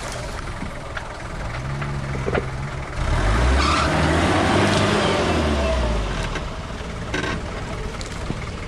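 Off-road 4x4's engine working under load, rising and getting much louder about three seconds in, holding for a few seconds, then easing off. Scattered short knocks run through it.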